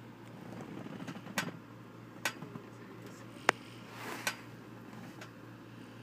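A sleeping young child snoring faintly, a low breath swelling about a second in and another near the end, with four sharp clicks spread through.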